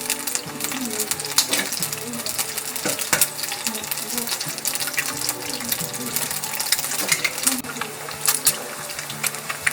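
Background music with a simple melody of held notes, over kitchen noise: many small clicks and clinks on a steady hiss.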